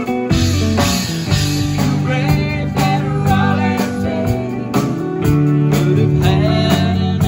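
Live country-rock band playing an instrumental passage: strummed acoustic and electric guitars and a pedal steel guitar over a steady drum beat, with a lead line that bends and slides in pitch.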